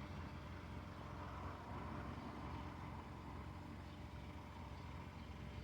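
Faint steady low rumble of background noise, with no bell ringing.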